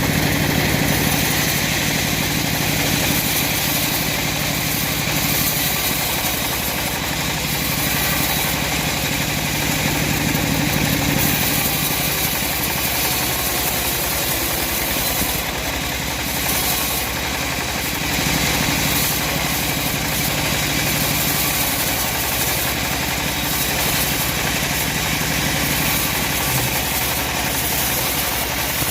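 Chainsaw engine running steadily as it cuts through timber, its pitch shifting a little now and then.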